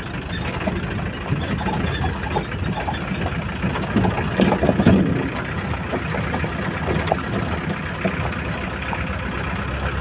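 A vehicle engine running steadily, with a louder rumble about four to five seconds in.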